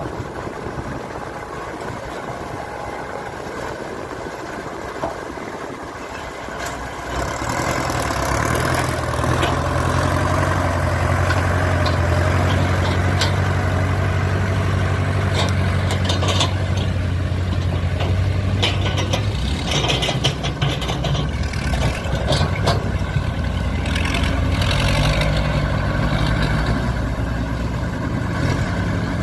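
A heavy machine's diesel engine running, picking up speed and load about seven seconds in and then working steadily, with scattered metallic clanks and knocks through the middle.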